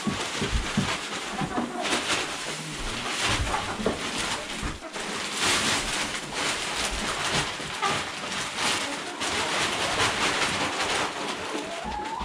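Wood shavings shaken out of a large plastic bag onto a coop floor: the bag rustles and the shavings pour in repeated surges, with ISA Brown laying hens calling softly now and then.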